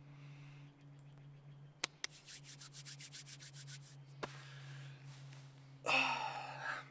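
Hands rubbing together in a brisk run of about eight strokes a second for nearly two seconds, then a softer rustle. A louder, noisy burst follows near the end.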